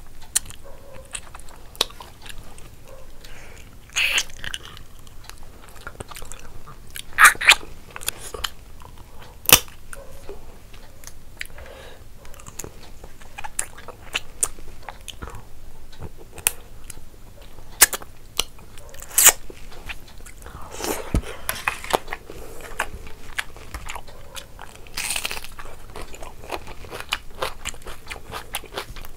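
Close-miked chewing and biting while eating crab curry with rice by hand, with wet mouth sounds and several sharp crunches, the loudest about seven, nine and eighteen seconds in.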